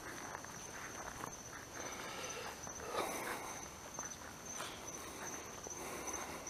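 Footsteps rustling through grass and dry leaves, loudest about three seconds in, over a steady, pulsing high trill of night insects.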